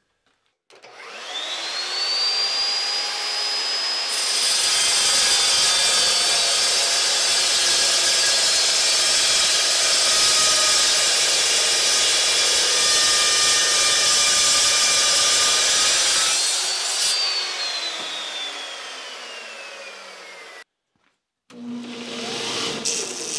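An electric power saw spins up with a rising whine, cuts through a bar of O1 tool steel for about twelve seconds, then runs down with a falling whine. After a short break, a belt grinder starts near the end.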